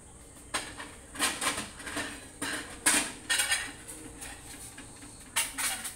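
Kitchenware clinking and clattering: irregular sharp knocks of dishes, pots and utensils, starting about half a second in and coming in quick clusters until near the end.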